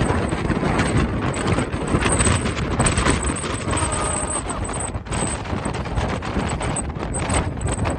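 Very strong wind buffeting the microphone: a loud, continuous low rumble with rapid crackling.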